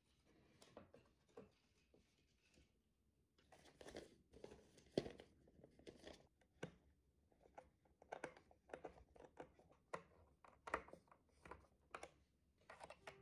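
Faint handling sounds while assembling a flat-pack pine box: wooden boards knocking and clattering against each other, paper and a plastic bag of screws rustling, and scattered small clicks. The sharpest knock comes about five seconds in.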